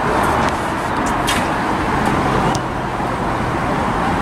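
Steady outdoor background noise with a few short sharp knocks, the plainest about a second in.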